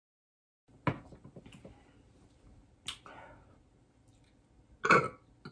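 After a moment of dead silence, mouth sounds of a person eating: two sharp smacking clicks about two seconds apart, then a louder, noisier smack near the end.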